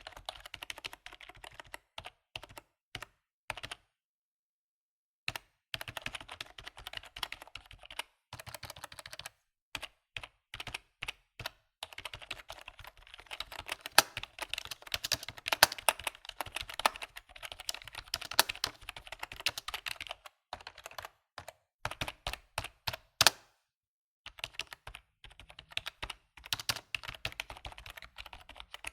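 Typing on a computer keyboard: quick runs of key clicks, broken by a silent pause of about a second and a half around four seconds in and a shorter one near the end, with a few sharper, louder keystrokes in the middle.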